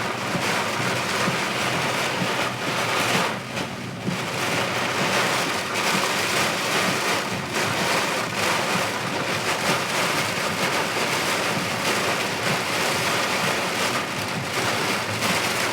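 Heavy thunderstorm rain pelting a car's roof and windshield, heard from inside the car: a dense, steady hiss full of tiny drop impacts.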